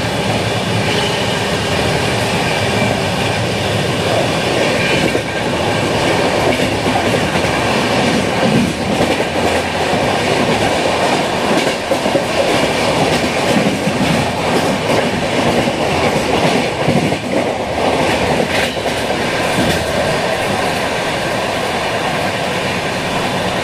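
Indian Railways express train running along the track: a steady rumble with the clickety-clack of coach wheels over rail joints.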